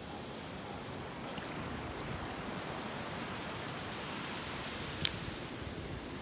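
Steady rushing noise of water, with one sharp click about five seconds in.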